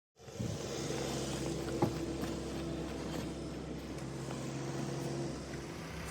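A car engine running steadily, cutting in abruptly after silence, with one sharp click about two seconds in.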